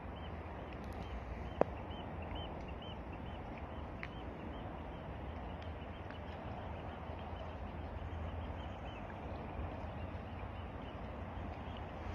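Steady outdoor ambience of wind on the microphone and small waves lapping at the shore, with faint repeated high chirps near the start and one sharp click about a second and a half in.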